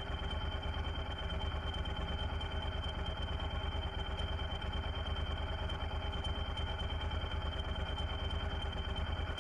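Motorcycle engines idling steadily, with a thin steady high tone running underneath.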